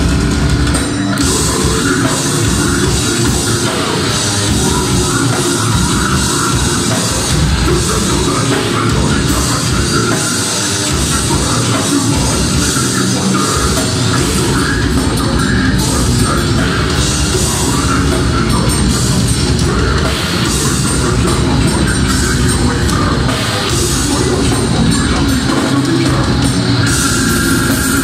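Live heavy rock band playing at full volume: distorted electric guitars and a drum kit, with vocals over the top.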